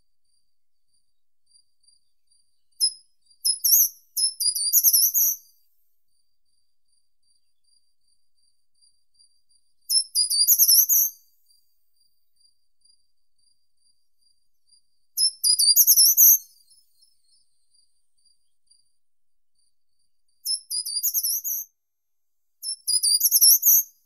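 Short-toed treecreeper singing: short, very high-pitched song phrases about a second long, repeated five times a few seconds apart.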